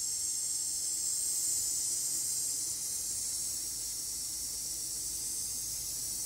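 Collaborative robot arm with its electric gripper running as it lifts and carries puzzle pieces: a steady high-pitched hiss with a faint wavering whine in it.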